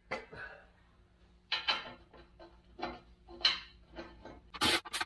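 Irregular metallic clinks, knocks and scrapes of a plasma-cut steel bumper shell and its bolts being handled against the vehicle frame, with a quicker, louder cluster of clanks near the end.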